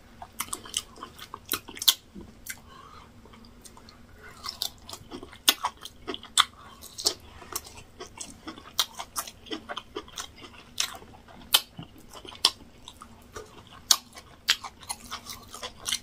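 A man chewing mouthfuls of yam fufu with egusi soup: irregular wet mouth smacks and clicks, a few a second, some louder than others.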